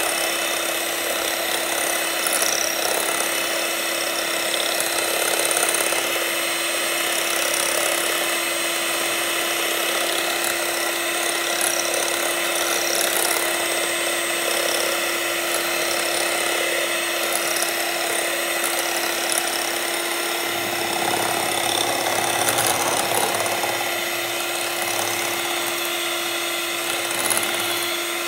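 Inalsa electric hand mixer running steadily with a constant motor hum, its twin beaters whipping instant coffee, sugar and hot water in a bowl toward a fluffy Dalgona foam.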